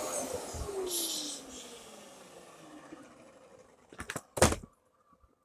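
Dyson DC33 upright vacuum cleaner's motor winding down after switch-off: the rushing airflow fades while its whine falls steadily in pitch over about three seconds. Two sharp clicks come near the end.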